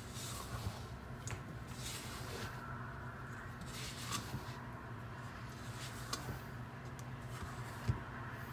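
Spatula folding thick carrot-cake batter in a stainless steel bowl: soft, repeated squishing and scraping strokes over a low steady hum, with one sharp knock near the end.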